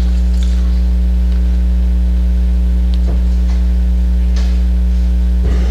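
Steady, loud electrical mains hum, with three faint knocks spread through it.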